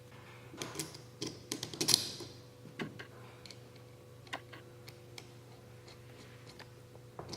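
Light, irregular clicks and taps of bolts and metal spacers being handled and fitted into a gearbox plate. They come in quick clusters in the first three seconds, then only as occasional ticks over a faint steady hum.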